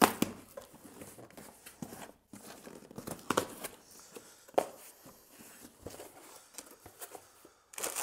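Cardboard shipping box being torn open by hand: packing tape ripping and cardboard flaps pulled back, with packing paper rustling near the end. A sharp snap of tape and cardboard right at the start is the loudest sound.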